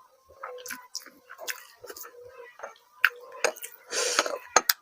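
Close-miked chewing and wet mouth sounds of someone eating: irregular smacks and clicks, with a louder, longer noisy stretch about four seconds in. A faint steady hum runs underneath.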